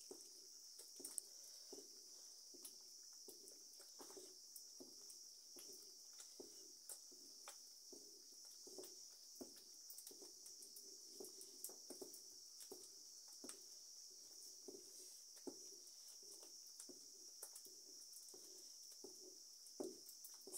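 Faint, irregular knocks and scrapes of a wooden stirring stick in a clay pot of thick groundnut sauce, one stroke every half second to a second as the peanut butter is mixed in until no lumps remain. Behind it runs a steady, high insect drone, like crickets.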